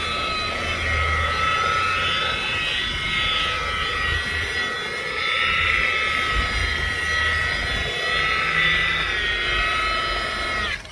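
DeWalt DWP849X variable-speed rotary polisher running steadily with a wool buffing pad pressed on its edge against boat gel coat, polishing out oxidation. It gives a steady whine, then winds down with a falling pitch when switched off near the end.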